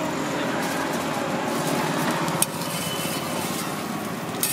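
Egg omelette and bread slices sizzling on a flat iron griddle, a steady crackling hiss with traffic noise behind it. A single sharp click comes about two and a half seconds in, and a brief louder noise right at the end.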